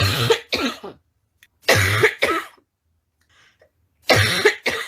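A woman's harsh, barking cough, in three bouts: two coughs at the start, two more about two seconds in, and a longer cough near the end.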